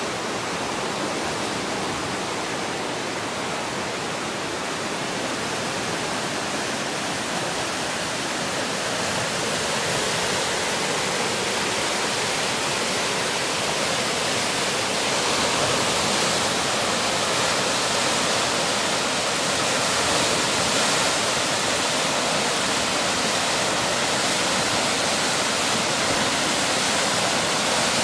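Whitewater river rapids rushing steadily, growing a little louder about halfway through.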